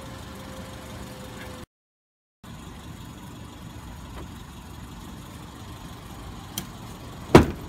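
A vehicle engine idling steadily with a low rumble. It briefly drops out, then comes back. Near the end comes a single sharp, loud clack, just as the car's lock is being sprung open.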